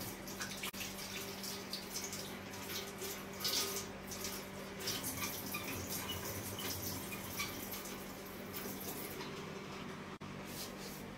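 Water running from a wall-mounted tap into a stainless steel sink while a child washes her hands under the stream, with small splashes and drips.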